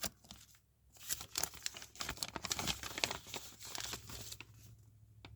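Paper crinkling and rustling as old pamphlets are handled and unfolded, after a single sharp click at the start; the crackling fades about four and a half seconds in.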